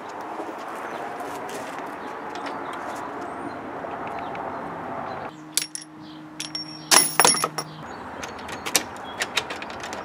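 Steady outdoor background noise, then metal clanking and rattling with a brief ringing clink as metal tools are handled in a cart, followed by scattered light clicks.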